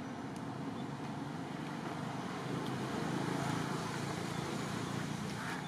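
Steady rumble of distant road traffic, swelling a little about halfway through, with a few faint clicks.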